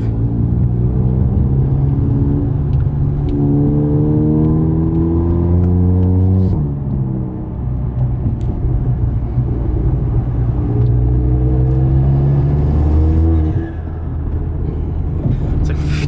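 Turbocharged Audi engine and loud exhaust accelerating hard twice, the revs climbing steadily each time. Each pull ends with a sudden lift-off of the throttle, about six seconds in and again near the end: the moment the modified turbo setup, which sends its let-off air back through the intake, is meant to flutter.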